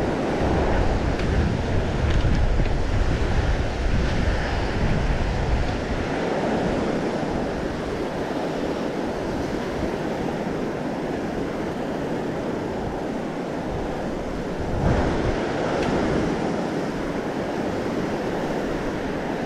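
Ocean surf washing on the beach, with wind buffeting the microphone. The low rumble is heaviest in the first few seconds and returns briefly about fifteen seconds in.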